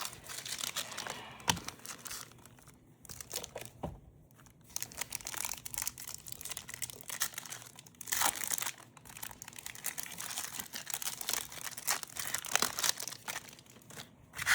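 Wrapper of a Topps Chrome football card pack crinkling and being torn open by hand, in irregular crackly bursts that come thickest about halfway through.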